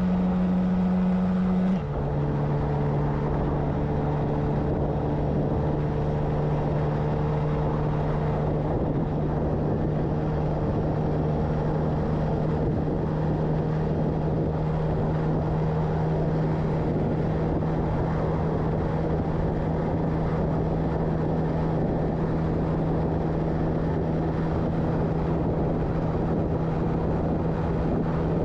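Honda Monkey's small single-cylinder four-stroke engine, running on the stock 40 mm piston and pulling steadily at cruising speed, heard from on the bike. Its pitch drops suddenly about two seconds in, then holds steady under a constant rush of wind and road noise.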